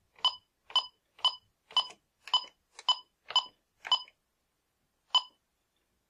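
Bosch B-Series intrusion keypad beeping at each key press: eight short identical beeps about half a second apart as digits are entered, then one more about a second later, when the entry is saved.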